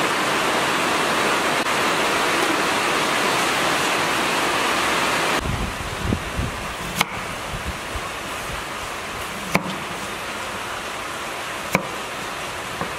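A steady hiss that stops suddenly about five seconds in, followed by a cleaver cutting through peeled taro on a wooden chopping board: a few dull thumps, then three sharp knocks of the blade on the board about two and a half seconds apart.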